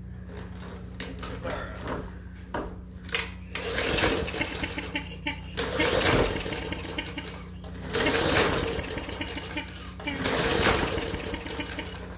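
Small lawn mower engine being pull-started several times, cranking and sputtering for a second or two on each pull without running on, after a shot of starter fluid. It sounds like it is getting fire.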